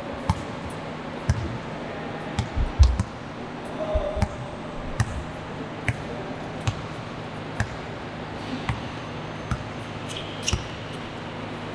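A basketball bouncing on a court floor during play: a series of separate sharp thuds at irregular intervals, roughly one a second, with a quick cluster of bounces about three seconds in.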